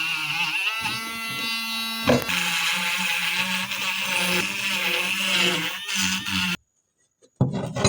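Small electric power tool, such as a drill or rotary grinder, running steadily with its pitch wavering under load and a knock about two seconds in. The sound cuts off abruptly, followed by a short clatter near the end.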